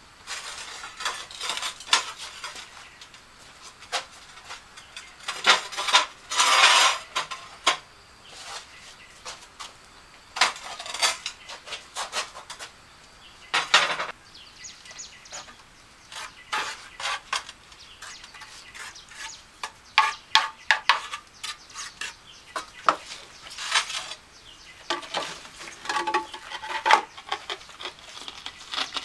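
Metal tool clinking and scraping against hard material in irregular strokes, the work of a tiling trowel on mortar and tile, with a longer scrape about six seconds in and another near fourteen seconds.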